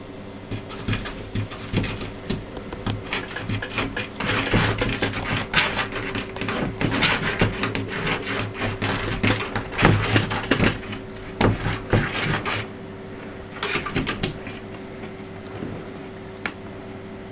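Cat clawing and pawing at the edge of a wooden cupboard door, its claws scraping the wood and the door knocking and rattling in its frame in irregular strokes. The scratching stops about three quarters of the way in, comes back briefly, and a single sharp click follows near the end.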